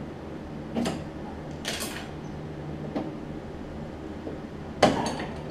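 Scrapes and clicks of metal parts being handled as a deck mounting clip is worked off a riding mower, a few short scrapes followed by a sharp clank near the end.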